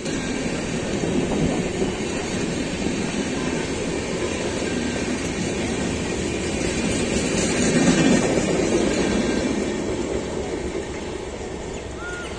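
LHB coaches of an express train rolling past on the track. The sound is loudest about eight seconds in, then fades as the last coach passes and the train draws away.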